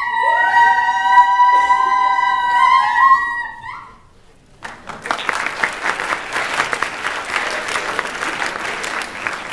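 The performance music ends on a long held chord of several steady tones that bends upward at the end. After a brief pause the audience breaks into steady applause.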